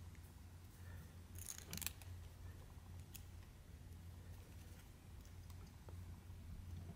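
Needle-nose pliers working a short piece of thin wire, bending it into a hook: a few faint metal clicks, with a small cluster about one and a half to two seconds in, over a low steady hum.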